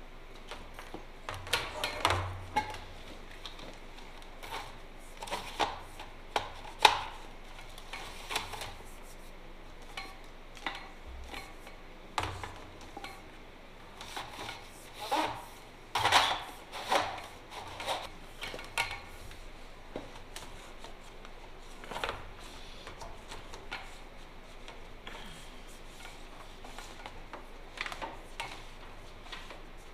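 Hand work on a truck chassis as nylon air-brake lines are pulled and fitted along the frame: irregular clicks, knocks and rubbing in clusters, the loudest about seven seconds in, quieter toward the end.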